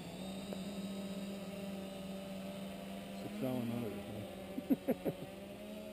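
Mini H-frame quadcopter hovering at a distance, its small electric motors and propellers giving a steady droning hum.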